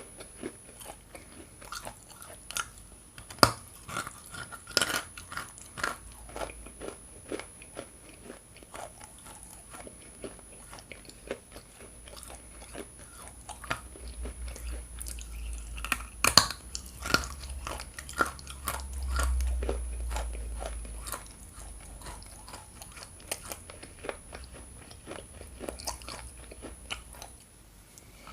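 Close-miked biting and chewing of hard chunks of Ural edible clay: repeated sharp crunches and crackles, rock-hard to the bite, with an especially loud crunch about 16 seconds in and a low muffled rumble under the chewing in the middle.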